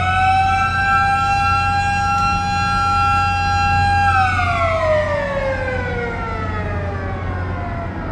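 Warning siren at a lowering railroad bascule drawbridge, holding a steady wail and then switched off about four seconds in, its pitch sliding slowly down as it winds down. A low steady hum runs underneath.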